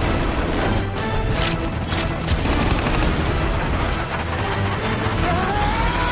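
Action-trailer sound mix: dramatic music under rapid bursts of gunfire, densest between about 1.5 and 2.5 s, during a helicopter chase.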